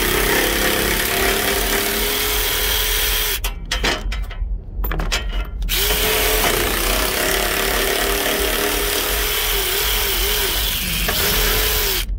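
Cordless power ratchet with a 14 mm socket running the bolts out of a truck step, a steady motor whine. It stops about three and a half seconds in and starts again about two seconds later, its pitch wavering briefly near the end.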